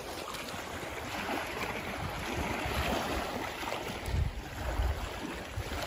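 Small waves lapping against a rocky lakeshore, with wind gusting on the microphone from about four seconds in.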